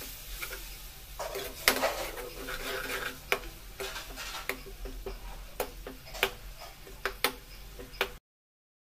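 A slotted spatula stirs and scrapes a thin, simmering masala gravy in a metal kadai, making irregular clicks and knocks against the pan over a faint sizzle. The sound cuts off suddenly near the end.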